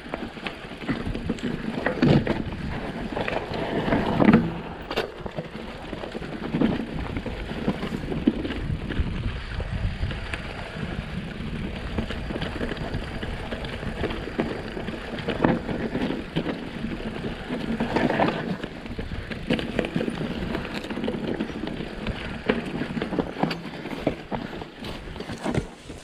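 Mountain bike riding down a dry dirt and pine-needle singletrack: steady tyre noise over loose ground, with many short knocks and rattles from the bike going over rocks and roots.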